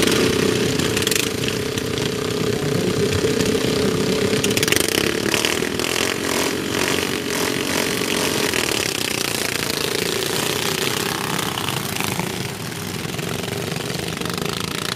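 Several racing ride-on lawnmower engines running together on the start grid, then revving up and changing pitch as the mowers accelerate away in the later part.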